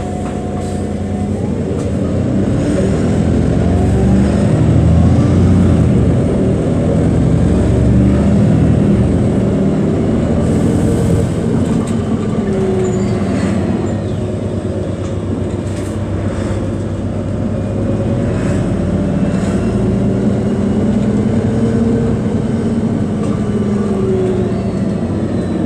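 City bus engine and drivetrain heard from inside the bus, the pitch rising as it picks up speed over the first few seconds, then running steadily with road noise.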